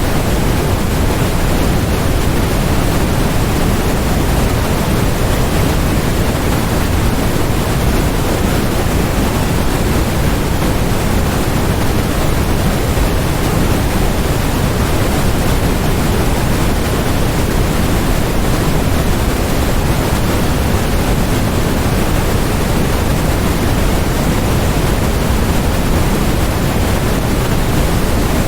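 Steady generated noise sold as white noise: an even, unchanging hiss with more weight in the low end than in the highs.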